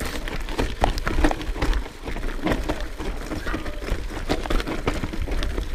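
Trek Remedy 9.7 full-suspension mountain bike riding down a rough trail: a steady stream of clicks, knocks and rattles as the tyres and frame take hits from the ground, over a steady low rumble.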